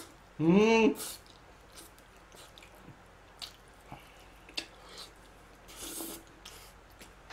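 A man eating a mouthful of cheese oven spaghetti: small wet chewing clicks throughout, a short slurp of noodles near the end, and a loud, short voiced exclamation of appreciation about half a second in.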